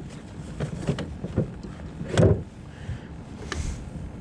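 Knocks and one heavier thump about two seconds in, from a crappie being put into the cooler in a fishing boat, over a low steady hum.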